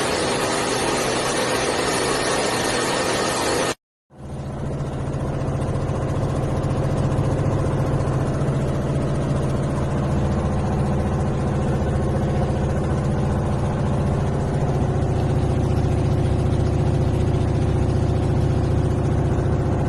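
Washing machine running. A steady rushing hiss for about four seconds, then, after a brief break, a low steady motor hum that builds over a couple of seconds and holds.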